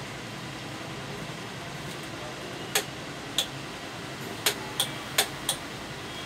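Six short, sharp clicks spread over about three seconds, as hands work a button just sewn onto a knitted pouch, over a steady background hum.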